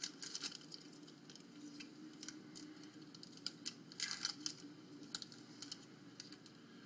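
A hockey card pack being torn open by hand: the wrapper crinkling and tearing in scattered small crackles, with the loudest bursts right at the start and about four seconds in.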